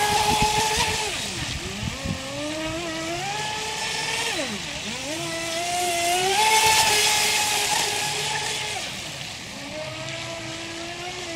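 Feilun FT011 brushless RC speedboat running fast on a pond: the electric motor's whine drops away three times as the throttle is eased for turns and climbs back each time, over the hiss of the hull's spray.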